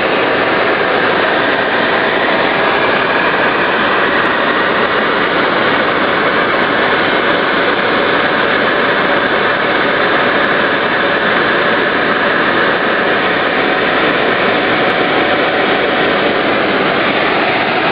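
Helicopter in flight heard from inside the cabin: a loud, steady rush of engine and rotor noise.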